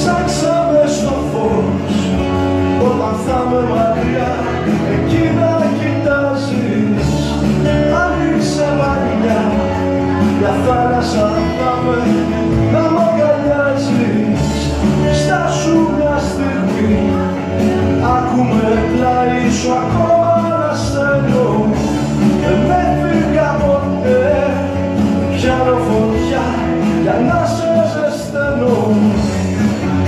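Live acoustic rock song: a steel-string acoustic guitar strummed steadily, with a lead melody line running over it.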